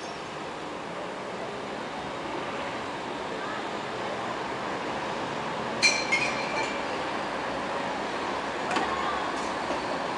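Outdoor city ambience: a steady hush of distant traffic. A bright clink about six seconds in rings briefly, followed by a few fainter clicks.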